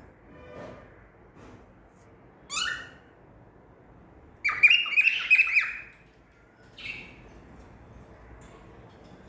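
Male cockatiel calling: a short call that sweeps upward in pitch, then the loudest part, a harsh rapid run of squawking chirps lasting about a second and a half, and one more short call after it.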